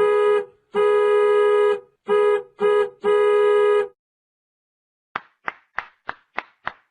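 A buzzy, horn-like tone honks five times in a short-long-short-short-long rhythm. After a pause, a run of short, sharply decaying plucked notes follows at about three a second.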